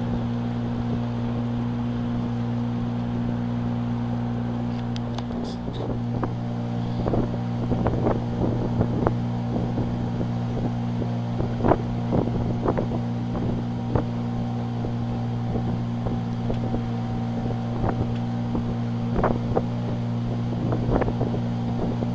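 Small motorboat's engine running with a steady hum, wind rumbling on the microphone for the first few seconds. From about six seconds in, irregular sharp knocks sound over the engine.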